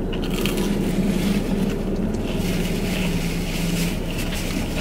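Steady low hum of a car running while parked, heard inside the cabin, with light chewing sounds over it.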